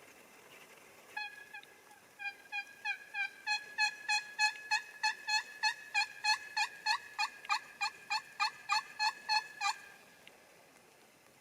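Turkey yelping: a long run of about two dozen evenly spaced yelps, a couple of notes first, then about two to three a second, building louder and keeping on for most of the stretch before stopping short.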